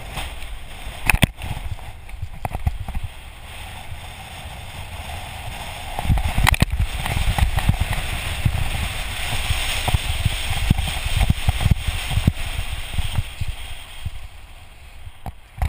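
A surfboard sliding fast down a sand dune, sand hissing under it while strong wind buffets the microphone. The rush grows louder about six seconds in and eases near the end, with a few sharp knocks along the way.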